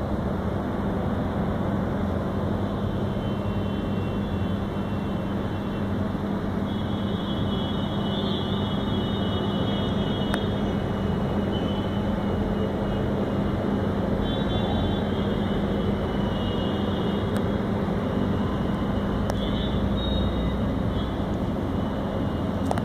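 Steady low hum over a constant rumble of background noise, with faint high chirping now and then.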